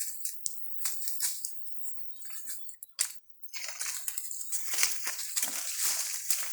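Crunching and scraping of sandy soil being dug by hand: scattered scrapes at first, then a denser run of scraping from about halfway through.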